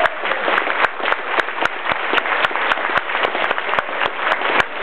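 Audience applauding as a guest is introduced: many hands clapping steadily.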